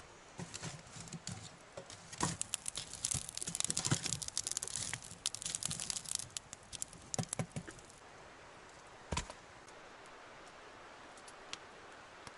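Crackling and clattering as sticks of wood are fed into a small steel wood stove with a fire burning in it, a dense run of sharp snaps and knocks, then a single knock a little after the middle.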